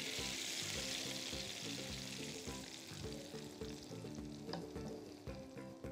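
Hot tempering oil with dried red chillies and green chillies sizzling as it is poured from a frying pan onto lentils and spinach. The sizzle is strongest at first and dies down over the next few seconds. Background music with a steady beat runs underneath.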